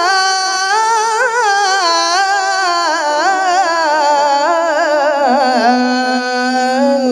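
Male Quran reciter holding one long ornamented melisma on a single vowel in melodic tajwid recitation. The pitch wavers in quick turns, then slides lower and settles on a low held note near the end.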